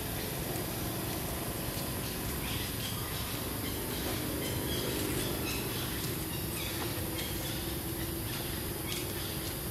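Steady outdoor background noise with a faint low hum through the middle and a few short, faint high chirps, typical of birds.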